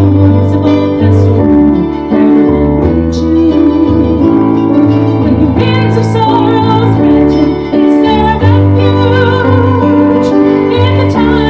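A woman singing a slow hymn to a picked mandolin, over deep held bass notes; her voice comes forward with vibrato about halfway through.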